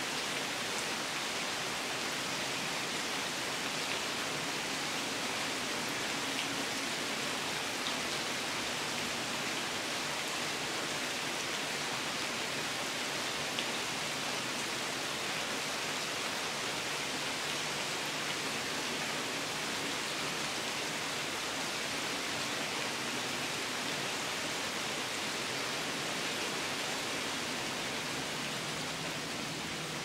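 Steady rain falling through woodland trees, an even hiss with an occasional faint drop tick, its low end cut by a high-pass filter.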